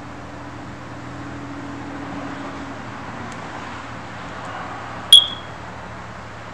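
Steady low hum with background hiss, broken a little after five seconds in by one sudden, loud, short high-pitched beep that dies away quickly.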